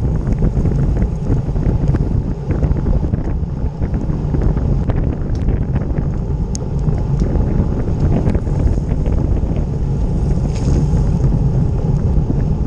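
Wind noise buffeting a bike-mounted camera's microphone while a road bike rides at speed, with tyre noise on tarmac and scattered light clicks and rattles.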